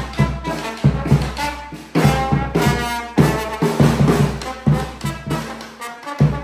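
A small band playing live, with a bass drum and snare drum keeping a steady beat under a brass melody and a strummed acoustic guitar.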